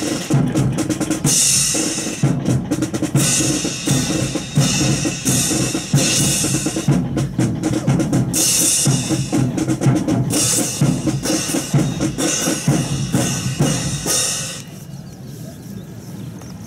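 About thirty drill rifles worked in unison, stocks slapped and butts struck in a quick, drum-like rhythm, stopping abruptly about fourteen and a half seconds in.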